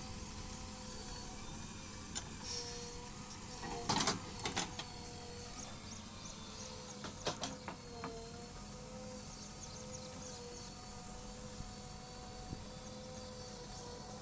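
JCB 3DX backhoe loader working its digging arm: a steady engine and hydraulic whine whose pitch dips and wavers as the arm moves. Sharp metallic knocks from the bucket and arm come about four seconds in and again around seven seconds.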